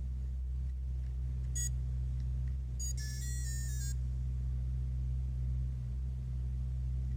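Tiny electronic sound chip of a capsule toy beeping: a short high beep about one and a half seconds in, then a quick run of electronic tones lasting about a second from around three seconds in. A steady low hum runs underneath.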